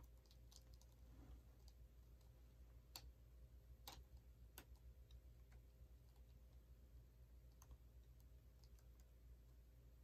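Near silence: low room tone with a few faint clicks about three to four and a half seconds in.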